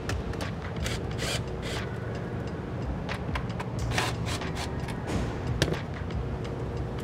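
Hand tools and metal parts clicking and knocking at irregular moments as a turbo inlet pipe is taken off a diesel engine, over a steady low background hum.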